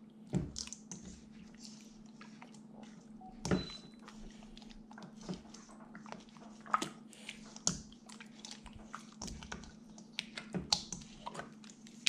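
Hands squishing and rubbing pork ribs in a thick marinade in a stainless steel bowl: irregular wet squelches and light clicks, with a louder knock about three and a half seconds in. A low steady hum runs underneath.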